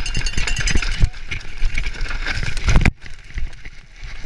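Mountain bike rattling and clattering hard over a rocky descent, with rapid irregular knocks. Just before three seconds in comes a heavy thud as the rider crashes, and the rattling stops suddenly, leaving a few scattered scuffs and knocks.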